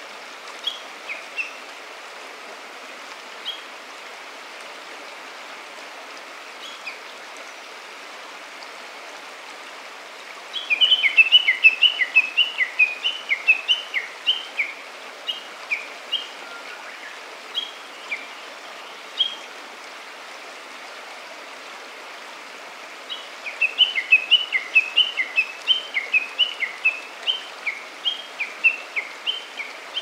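A stream flowing steadily, with small songbirds chirping over it. Twice a bird gives a fast run of short, sharp chirps lasting several seconds, about a third of the way in and again near the end; these are the loudest sounds, with scattered single chirps in between.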